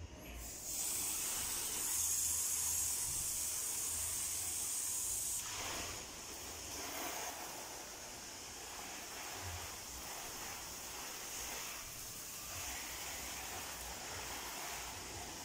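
Water spraying from a hose spray nozzle over a motor scooter, a steady hiss that drops somewhat in level about five seconds in.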